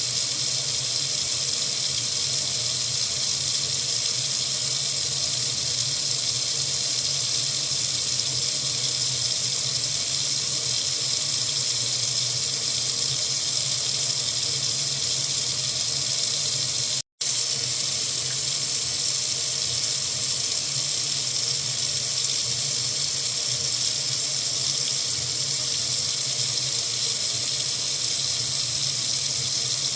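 Water running steadily from a faucet into a sink: an even, unbroken hissing rush. It cuts out completely for a split second about 17 seconds in, then resumes unchanged.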